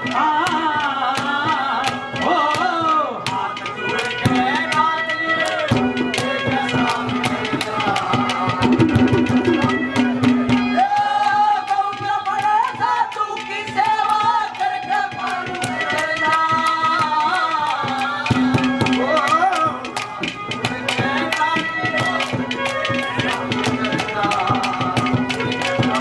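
Instrumental interlude of a live Haryanvi ragni: hand drums play a fast, dense rhythm under a held, wavering melody line.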